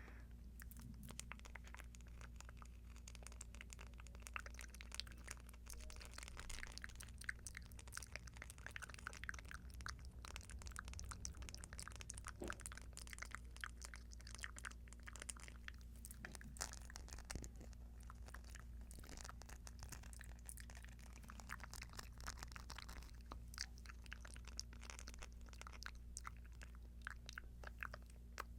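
Earrings handled close to a microphone: a faint, continuous run of small clicks and crackles.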